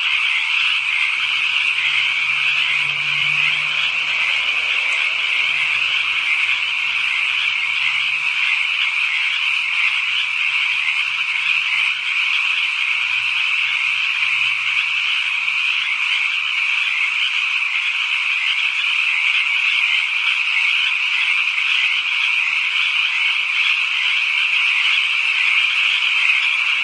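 A dense night chorus of a great many frogs calling at once, merging into a loud, steady, high-pitched trilling din. Fainter, deeper calls come and go through the first half.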